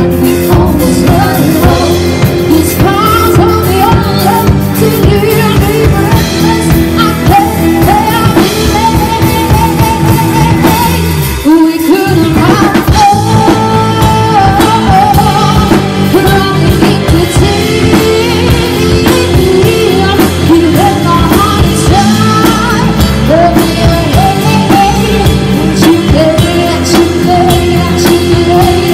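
Live band playing: a woman singing lead into a microphone over electric bass, electric guitar and drum kit. The band drops out for a moment about twelve seconds in, then comes straight back.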